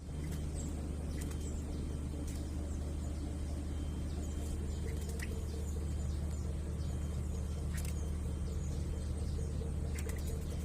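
Steady low mechanical hum, with scattered faint clicks over it.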